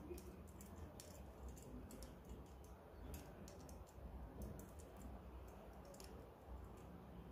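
Rolled oat flakes sprinkled by hand into a nonstick frying pan, landing with faint, irregular little ticks.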